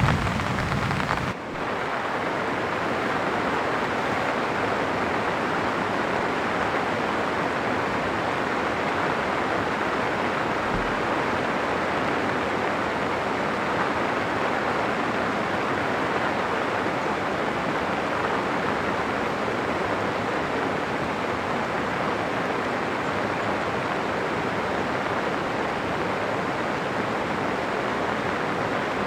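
Low thunder rumbles at the start, cut off sharply about a second in. Then a steady, even rush of falling or running water with no distinct drops or events.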